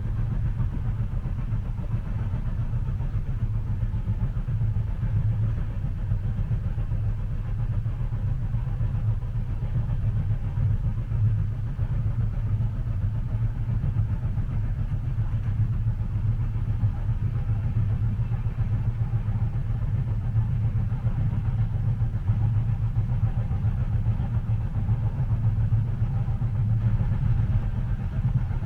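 Steady low rumble of a moving train heard from inside the passenger cabin, with a soft even hiss above it.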